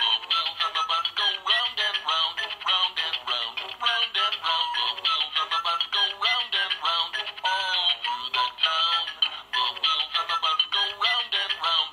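Fisher-Price Barney Silly Hats electronic plush toy playing a song from its built-in sound unit: a voice singing over a backing tune, thin and tinny with almost no bass. It starts suddenly after a short pause.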